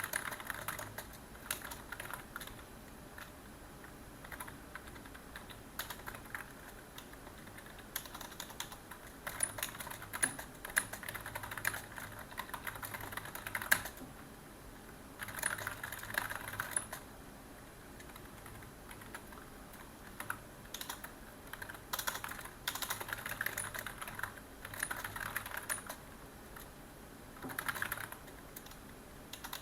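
Typing on a computer keyboard: runs of quick key clicks in bursts of one to three seconds, broken by short pauses.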